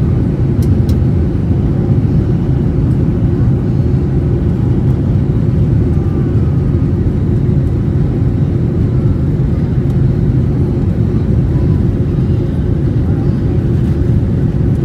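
Steady low rumble of a Boeing 737-800's CFM56 jet engines and airflow, heard inside the passenger cabin while the plane moves on the ground.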